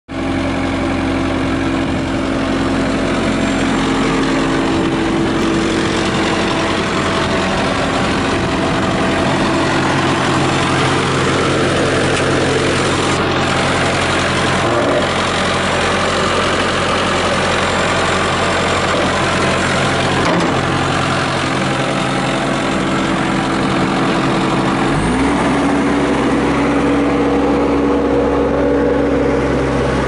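Cat skid steer's diesel engine idling steadily. Its note changes slightly about 25 seconds in.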